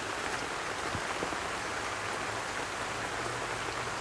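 A steady, even water-like hiss with faint scattered ticks; a faint low hum comes in about two and a half seconds in.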